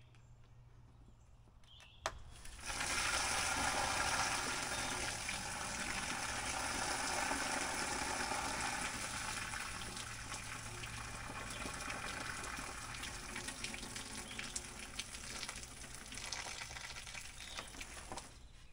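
Rainwater pooled on a sagging tarp roof pouring off its pulled-down edge onto the ground. A short snap comes just before; the gush starts about two and a half seconds in, is strongest for the next few seconds, then slowly tapers off.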